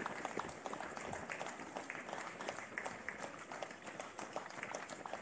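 Scattered hand-clapping from spectators, mixed with runners' footsteps slapping on the asphalt road: a steady run of irregular sharp claps and footfalls.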